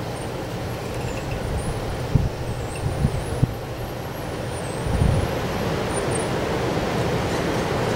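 Strong wind blowing, a steady rushing noise with gusts buffeting the microphone in low rumbles a few times.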